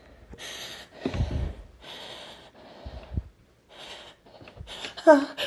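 A person's sharp, ragged breaths and snorts through the nose while fighting off a sneeze brought on by a tickle, a run of short gasps ending in two brief hitching vocal sounds near the end.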